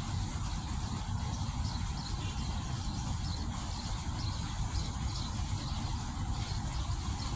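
Fountain water jets splashing steadily, over a constant low rumble.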